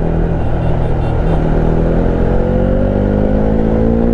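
Bajaj Dominar 400's single-cylinder engine running under way, with wind rumble on the helmet microphone. From about halfway through, the engine note rises steadily as the bike accelerates.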